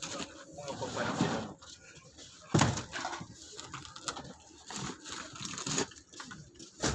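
Large fish being handled in and around an icebox on a boat deck: a sharp thump about two and a half seconds in, smaller knocks, and a few voices.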